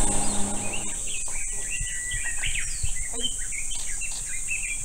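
Outdoor summer ambience: a steady high-pitched insect drone, with birds chirping in short calls from about a second in. A low steady hum fades out about a second in.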